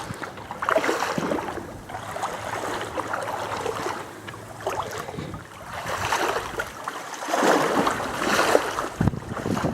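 Deep water sloshing and splashing around a person wading through it, waist-deep, swelling and falling away with each stride.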